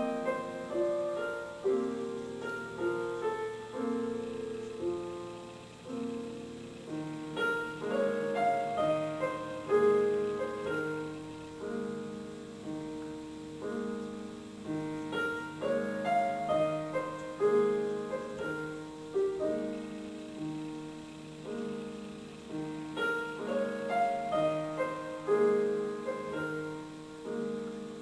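Background solo piano music: a gentle, flowing run of notes in a repeating pattern.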